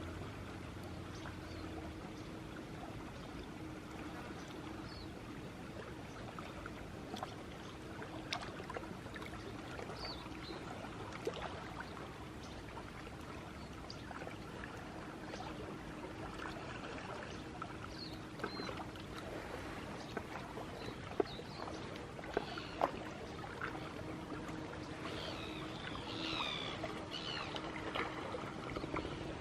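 Steady gentle trickle and lap of water, with a few soft clicks and short high chirps, most of the chirps near the end.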